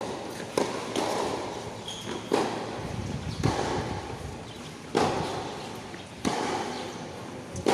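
Tennis rally on a hard court: six sharp pops of racket on ball and ball on court, a second or so apart, each echoing briefly under the covered court's roof.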